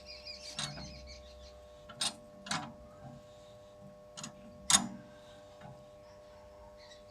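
Five short, sharp mechanical clacks at uneven intervals, the loudest a little past the middle, over a steady low hum.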